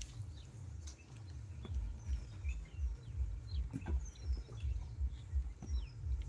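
Small birds chirping in short rising and falling calls, over a low rumbling pulse that repeats about three times a second.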